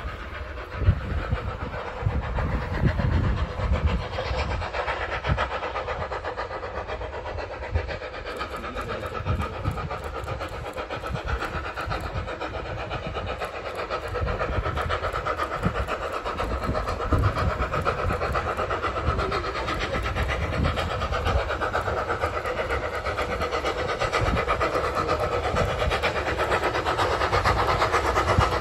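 Small steam locomotive approaching slowly, its running sound growing louder from about halfway through.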